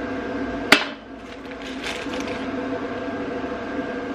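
A small black plastic plumbing fitting being handled: one sharp click just under a second in, then light rustling, over a steady hum in the room.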